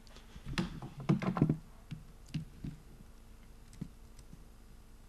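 Laptop keyboard keys tapped in scattered, irregular strokes, with a few louder, duller knocks in the first second and a half.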